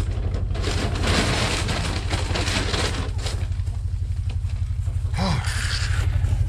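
Plastic scoop digging into a paper feed bag of scratch grain, with the bag and grain rustling, over a steady low pulsing hum. A short call, likely a hen, comes about five seconds in, followed by more rustling.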